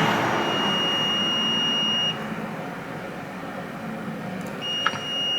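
Multimeter continuity beeper sounding a steady high beep for about two seconds, then starting again near the end, as the probes bridge the laptop's 3.3 V rail and ground: the rail has very low resistance, the sign of a short.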